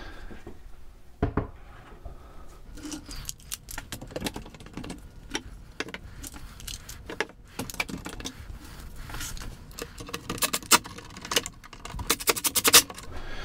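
Clicks and knocks of clamps and wooden cleat boards being handled, then a quick run of sharp clicks near the end as a cordless drill is put to the board.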